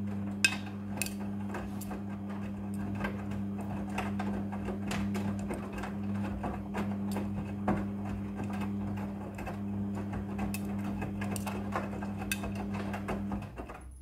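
Midea front-loading washing machine tumbling a wet load during the wash: a steady motor hum with frequent clinks and knocks as zippers and clothes hit the steel drum. The motor hum stops about a second before the end as the drum comes to rest.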